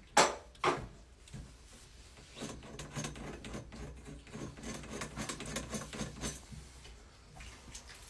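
Two sharp knocks, then several seconds of a razor blade scraping and scratching at a copper pipe, shaving off a bead of solder.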